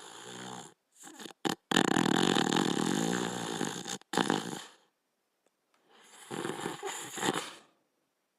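Border collie snoring in its sleep: a few short snores, then a long one of about two seconds, and after a pause another of about two seconds near the end.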